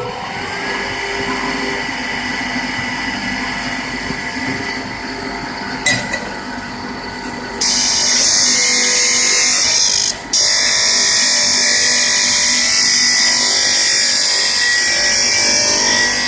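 Homemade disc grinder with a 1.5 kW motor on a variable-frequency drive, running with a steady whine whose pitch rises right at the start. About seven and a half seconds in, a loud rasping hiss begins as a workpiece is pressed against the 220 mm abrasive disc. The hiss breaks off briefly near ten seconds, then carries on.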